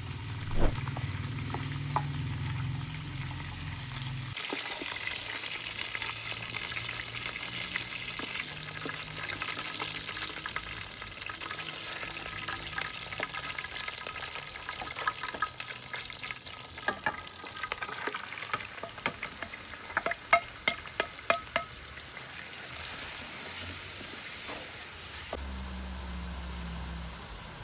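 Food sizzling as it fries in a pan, stirred with a utensil that clicks against the pan; the clicks come in a quick run about two-thirds of the way through. A low hum sounds under the first few seconds.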